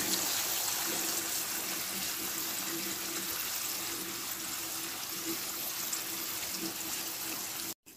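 Potato slices frying in hot oil in a frying pan: a steady sizzle that cuts off suddenly near the end.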